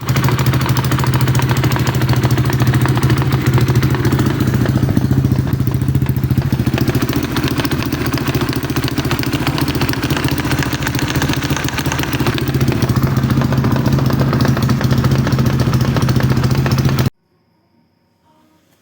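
Single-cylinder four-stroke 172FMM engine of an Atlet 300 running loud and steady with a knock from its centrifugal oil filter, which has spun loose and broken apart. The sound cuts off suddenly near the end.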